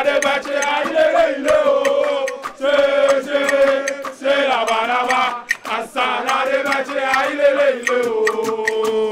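A crowd of supporters chanting a song together in unison, a man leading them on a microphone, with held notes that rise and fall in phrases and many sharp hits mixed in.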